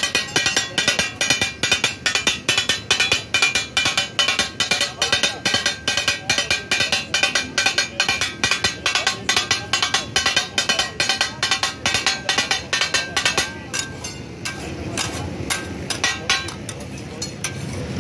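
Kata-kat being made: two steel blades chopping and clanging on a large flat griddle in a fast, even rhythm of about four or five strikes a second. Near the end the chopping thins out to scattered strokes, and the steady sizzle of the meat on the hot griddle comes up.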